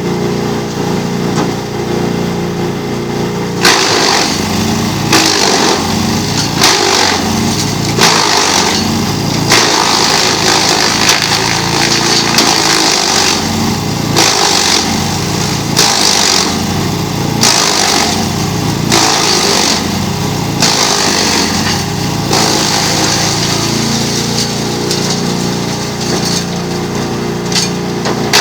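GreenMech Arborist 130 wood chipper's engine running steadily while it chips wood on dull blades. From a few seconds in there is a loud chipping burst about every one to two seconds.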